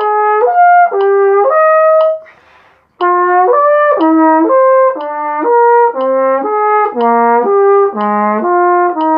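Flugelhorn playing a legato exercise, slurring from low to high notes in intervals of sixths, with a quick breath about two seconds in. After the breath, each pair starts on a lower note than the one before, so the low notes step downward.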